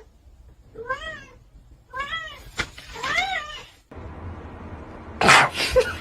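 Kitten meowing three times, about a second apart, each call rising and then falling in pitch. About five seconds in comes a short, loud, noisy burst.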